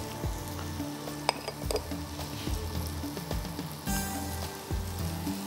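Steady sizzling from a frying pan heating on the stove, with a few light clicks from a knife spreading butter on a bun.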